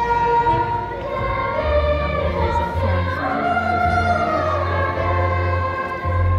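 Choir singing long held notes in a slow melody over a steady low instrumental bass.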